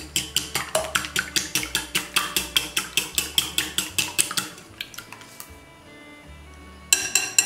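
Wire whisk beating eggs in a ceramic bowl, its wires clicking against the bowl's sides about six times a second. The clicking stops for about two seconds and starts again near the end.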